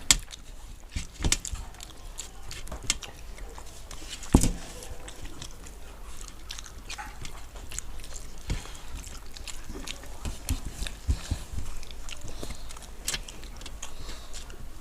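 Close-up eating sounds: chewing and wet mouth smacks from someone eating fried fish with rice, with scattered small clicks and a sharper knock right at the start and another about four and a half seconds in.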